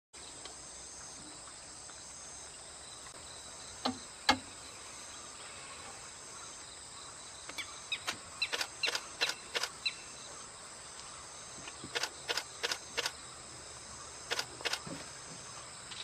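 Steady high-pitched insect chirring, broken by short sharp clicks: two about four seconds in, then quick runs of them through the second half.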